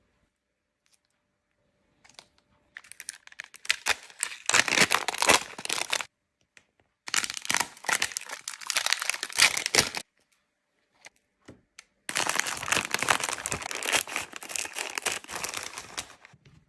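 Chocolate packaging being crinkled and torn open, in three bursts of crackly rustling separated by short pauses.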